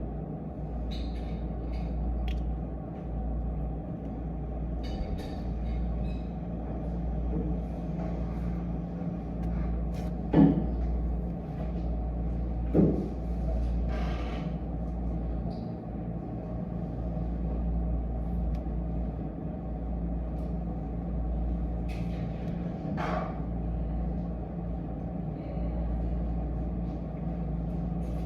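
Steady low hum and rumble of background noise, with scattered light taps and clicks and two louder knocks about ten and thirteen seconds in.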